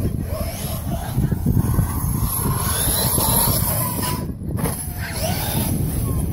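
Brushless electric motor of a large-scale RC short-course truck running on an 8S battery, a faint whine rising and falling in pitch as it is throttled up for a jump and let off, over a heavy low rumble.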